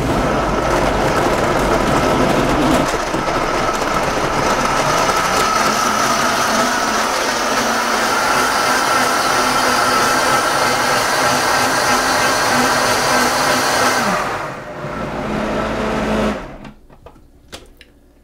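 Vitamix Ascent A3500 blender running, liquefying frozen berries, fruit, greens and water into a smoothie. The motor holds a steady, loud sound for about fourteen seconds, drops to a lower sound for a couple of seconds, then stops.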